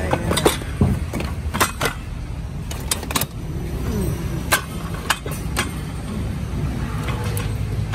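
Used metal power tools knocking and clinking against each other as they are shifted by hand in a pile: about a dozen sharp, irregular knocks over a steady low rumble.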